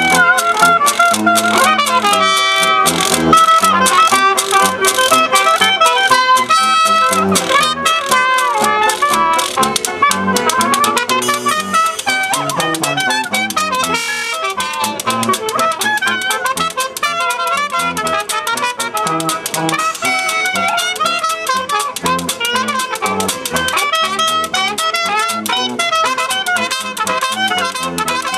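Traditional jazz band playing: a trumpet leads over clarinet and tuba, with banjo and washboard keeping a steady beat.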